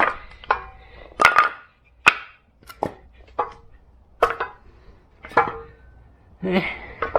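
Chunks of wood being handled and set in place, knocking sharply about once a second: some eight separate knocks at uneven spacing.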